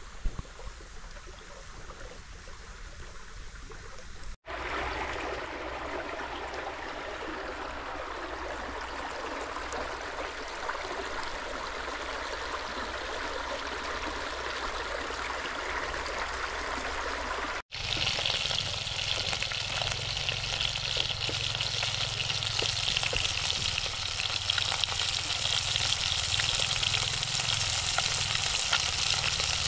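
Chicken thighs grilling over hot charcoal, sizzling and crackling, in three shots cut together. The sound drops out briefly twice, and the last part is the loudest, with dense crackle.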